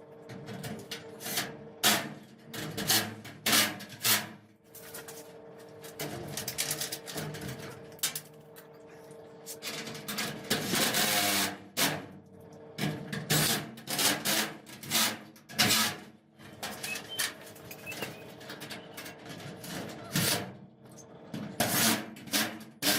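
Work on a metal garage door: a string of sharp knocks and clanks, with a longer stretch of a power drill running around the middle, as fasteners are driven to pull the bowed door panel in against an aluminum angle brace.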